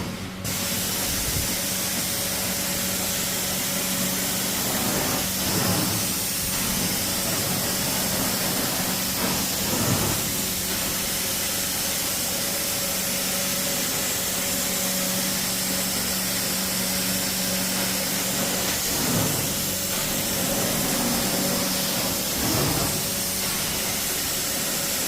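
Hot-water carpet extractor running on high, its cleaning wand spraying steaming water and sucking it back up: a steady hiss over the machine's steady hum.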